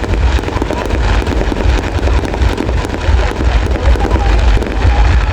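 Fireworks crackling and popping in quick, dense succession over a heavy low rumble.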